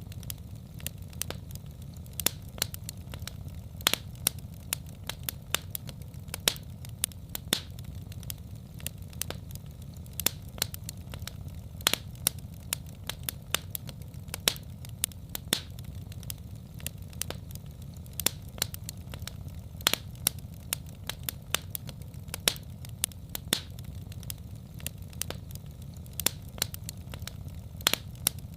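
Fireplace fire crackling: frequent sharp, irregular pops over a steady low rumble.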